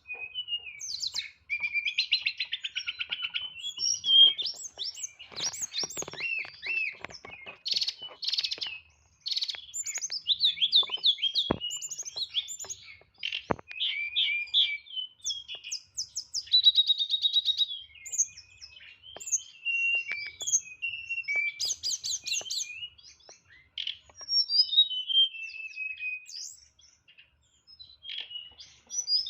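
A tledekan songbird singing a long, varied song of rapid chirps, trills and whistled slurs, packed with fill-in phrases (isian), with a short pause near the end.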